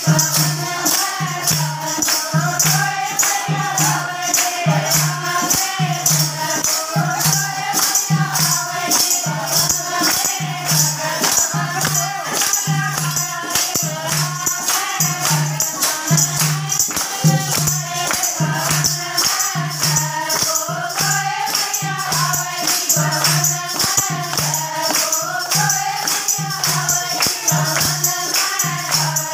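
A group of women singing a Haryanvi bhajan together, accompanied by steady rhythmic hand-clapping and a jingling percussion beat.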